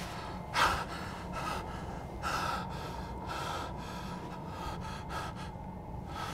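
A man breathing in short, uneven gasps, about three a second, hunched over with his hands to his face.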